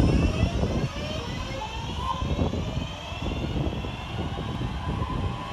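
Class 323 electric multiple unit pulling away, its traction equipment whining in several pitches that rise steadily together as the train accelerates, over a low rumble.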